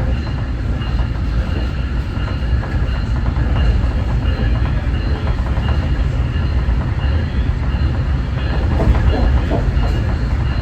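Nippon Sharyo diesel multiple-unit train running at speed, heard from inside the passenger car: a steady, loud low rumble of engine and wheels on the rails.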